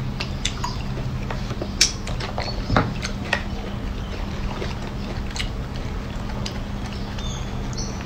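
Baby macaque eating longan fruit: scattered small wet clicks and smacks of biting and chewing, a few sharper ticks about two and three seconds in, over a steady low hum.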